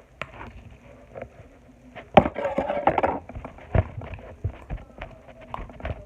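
Sticky homemade slime being kneaded and pulled by hand: irregular wet clicks and pops, with a denser squelching stretch about two seconds in.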